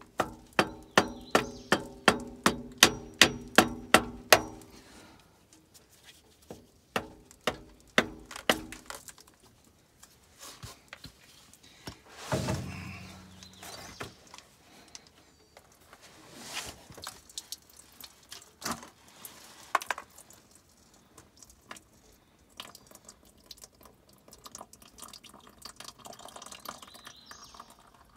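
Engine oil dripping from a punctured oil filter: a quick run of ringing drips, about three or four a second, for the first four seconds or so, then a shorter run, then slower scattered drips. A brief louder noise comes about twelve seconds in.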